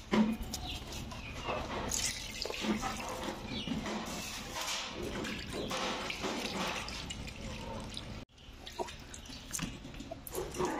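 Water sloshing and splashing as raw chicken legs are rubbed and turned by hand in a large steel pot of water. A brief break about eight seconds in, then quieter dripping and wet pieces shifting in a plastic colander.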